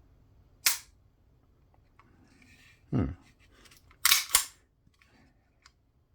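Sharp metallic clicks of a Live Free Armory Apollo 11 9mm pistol's action worked by hand, its trigger dry-fired to test a pull that drags and sometimes sticks. There are four clicks, the last two in quick succession about four seconds in.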